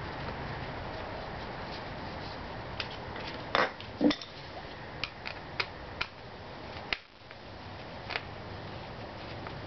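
Light clicks and knocks of a Phillips screwdriver against screws and the plastic air filter housing while the housing screws of a Honda Elite 110 scooter are taken out. About nine scattered taps come over a steady background noise, the loudest a pair about three and a half and four seconds in.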